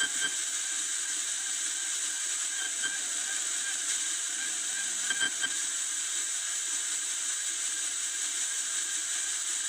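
Steady static hiss from a six-channel radio signal catcher's audio output as it picks up the transmitter of a hidden cheating circuit, with a few faint clicks.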